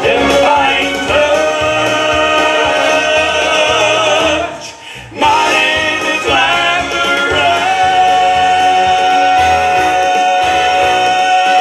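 Men's gospel vocal group singing in close harmony into microphones. After a short break about halfway, the voices settle into one long held chord that closes the song.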